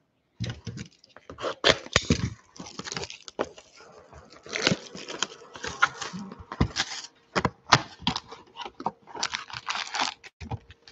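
Sealed trading-card hobby box being torn open by hand: crackling plastic wrap, tearing cardboard and rustling of the foil packs inside, in many short irregular bursts.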